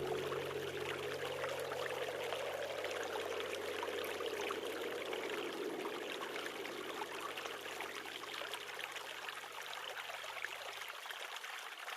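A steady rushing noise, like running water or strong wind, with a low steady hum underneath that cuts off suddenly near the end.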